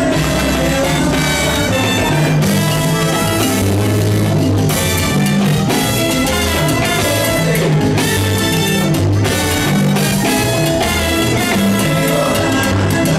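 Live salsa band playing: congas, timbales and trombones over a pulsing bass line, loud and continuous.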